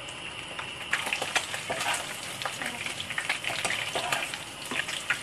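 Mantis shrimp frying in oil in a ceramic-coated wok with a steady sizzle. About a second in, a spatula starts stirring them, adding quick scraping clicks and louder crackling.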